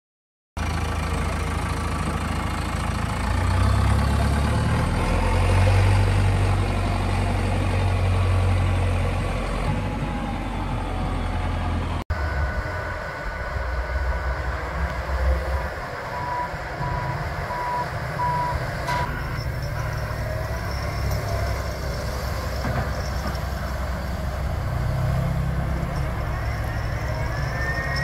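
Heavy truck engine running steadily, with a reversing alarm beeping about five times past the middle. The sound breaks off abruptly and resumes about twelve seconds in.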